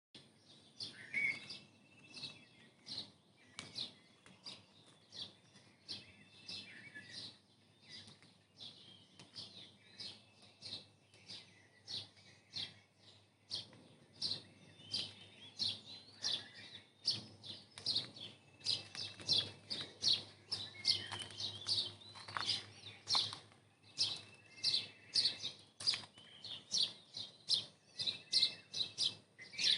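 Several small birds chirping in short, sharp notes, several a second, with an occasional brief whistled call among them.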